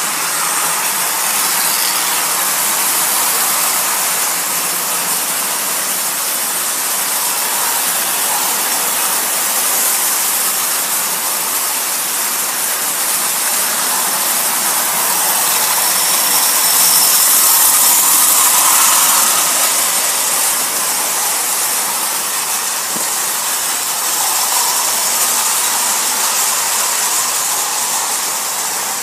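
Marx tinplate toy diesel trains running on three-rail tinplate track: a steady whirring rattle of motors and wheels, growing louder for a few seconds past the middle.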